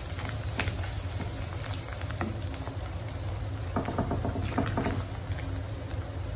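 Mutton pieces frying in oil in a wok, crackling and spitting, while a wooden spatula stirs and scrapes them, most busily about four seconds in. A steady low hum runs underneath.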